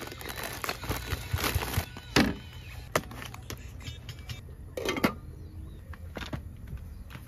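Hands rummaging through packaged food in a plastic storage crate and handling cookware: rustling, light knocks and clicks, with two louder clunks, about two seconds in and about five seconds in.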